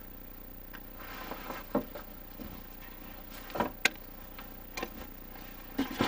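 About five light clicks and taps, spaced irregularly, from small parts being handled and set in place while fitting a diesel heater's fuel line and filter, over a steady low background.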